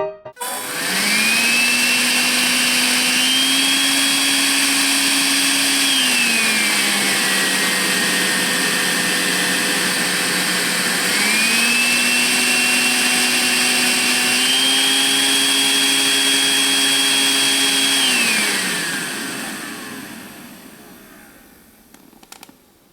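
Makita 10.8 V cordless stick vacuum cleaner switched on and running with a steady motor whine. Its speed steps up, drops back, then steps up twice again, as when moving between speed settings. It switches off and spins down over a few seconds near the end.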